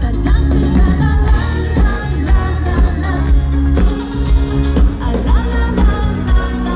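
Live Schlager pop music: a woman singing over a band with a steady, thumping beat, heard through a concert PA.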